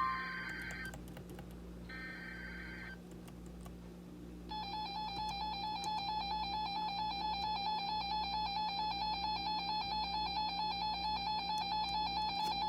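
Emergency Alert System header tones for a tornado warning: two short, screechy data chirps about two seconds apart, a brief pause, then the long steady two-tone EAS attention signal, which starts about four and a half seconds in and holds for over eight seconds.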